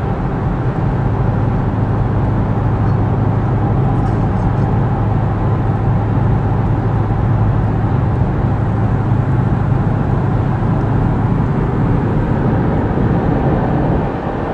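Ford Mustang driving at highway speed, heard from inside the cabin: a steady low engine and tyre drone with road noise, easing slightly near the end.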